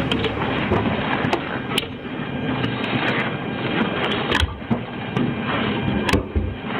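Police body-worn camera handling noise: steady rustling and scraping of the officer's uniform and gear against the microphone, with a few sharp knocks and clicks, the loudest about four and a half and six seconds in.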